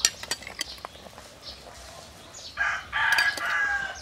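A rooster crows once, starting about two and a half seconds in and lasting over a second. It is the loudest sound here, after a few sharp clicks near the start and faint small bird chirps.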